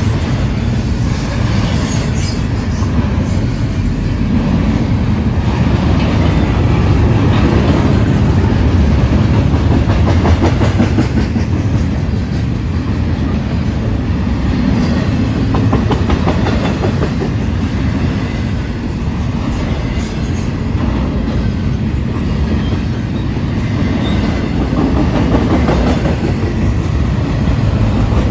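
Double-stack intermodal container well cars rolling past close by: a loud, steady rumble of steel wheels on rail with a continuous clickety-clack of wheels clattering over the track.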